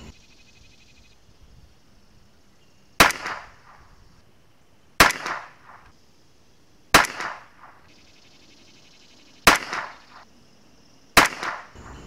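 Five shots from a CZ 457 Pro Varmint bolt-action .22LR rifle firing Wolf Match Target ammunition, each a sharp crack with a short ring-out, spaced about two seconds apart, the last two a little closer together.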